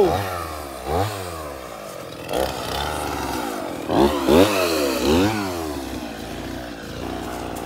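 Chainsaw engine revving up and down repeatedly, its pitch climbing and dropping several times as the throttle is worked and the chain bites into the wood.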